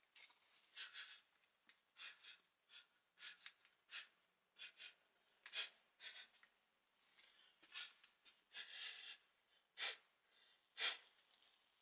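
Quiet handling noise: irregular rustles and scrapes, with a few sharp clicks, about a second apart near the end.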